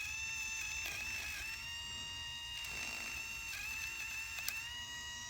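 Electric nail grinder's small motor running with a steady high-pitched whine while grinding a fingernail, the pitch sagging briefly now and then as the nail presses against it. A few faint ticks.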